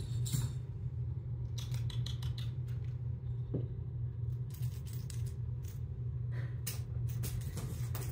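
Kittens' claws and paws clicking and tapping on a hardwood floor as they run and pounce among small toys, in scattered clusters of light clicks over a steady low hum.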